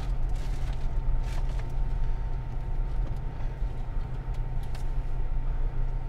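A car running, heard from inside the cabin: a steady low rumble with a faint steady hum above it.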